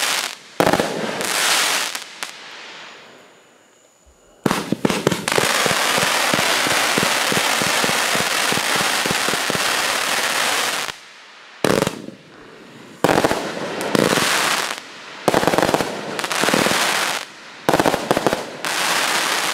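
Lesli Kruitbuffel consumer firework cake firing shots that burst overhead. About four seconds in comes a long, dense stretch of crackling, and after that short bursts follow about a second apart.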